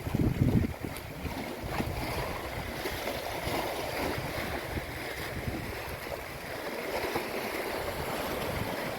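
Small waves washing over and draining off shoreline stones, with wind buffeting the microphone, the buffeting strongest in the first second.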